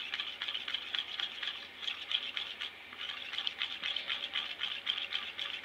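White plastic spoon stirring aloe vera gel and jojoba oil in a small bowl: quick, repeated scraping and clicking of the spoon against the bowl's sides and bottom.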